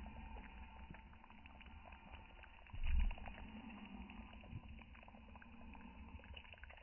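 Faint crackling and popping from a wood campfire and a clay pot of bean stew simmering on it, over a low rumble that swells briefly about three seconds in.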